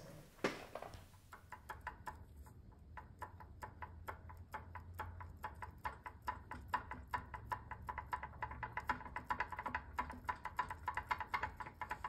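A socket ratchet clicking in quick runs of metallic ticks, tightening the connecting-rod cap bolts inside a small engine's crankcase.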